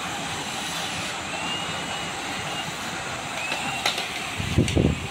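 Steady rushing noise of a bunch of road racing bicycles riding past on a concrete road, with a few sharp clicks and a short, louder low rumble about four and a half seconds in.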